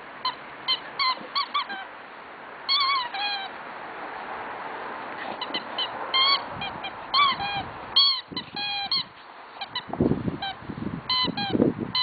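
Rubber chicken squeaky toy squeezed by a dog's bites, giving many short honking squeaks in irregular quick runs, with a few low bumps near the end.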